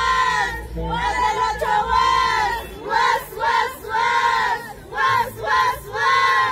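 A chorus of high-pitched women's voices singing and whooping together in short rising-and-falling phrases, without instruments. The phrases come quicker and shorter in the second half.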